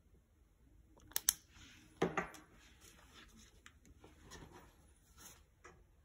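Handling noise of a DSLR with a large zoom lens: two sharp clicks a little after a second in, a louder knock at about two seconds, then light taps and rustling.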